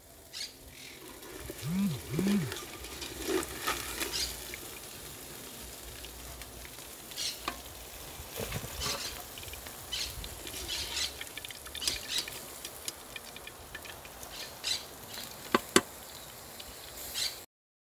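Fish deep-frying in hot oil in a cast-iron pot over a fire: a steady sizzle with frequent crackles and pops. A sharp click near the end.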